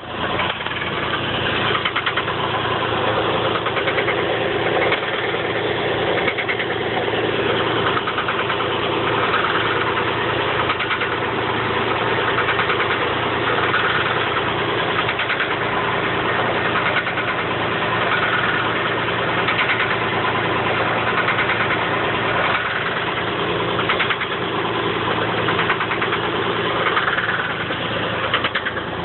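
1985 Chevrolet Camaro Berlinetta engine idling steadily with a fast, regular knock; the owner does not know its cause.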